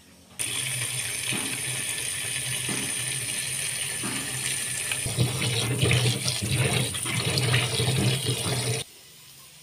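Tap water running into a plastic bowl of cauliflower florets, with splashing as a hand turns and rubs the florets from about halfway; the tap stops abruptly near the end.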